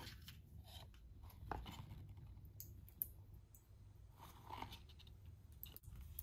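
Faint rustling, crinkling and light clicks of a cardboard box and plastic packaging being handled and opened.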